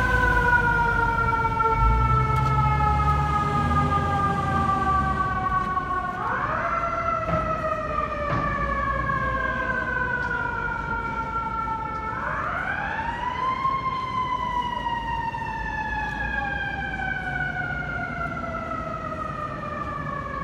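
Fire engine's mechanical siren wailing: each time it is wound up it climbs quickly, then falls slowly over about six seconds, with fresh wind-ups about six and twelve seconds in. The truck's diesel engine runs low underneath for the first few seconds, and the whole sound fades gradually as the rig pulls away.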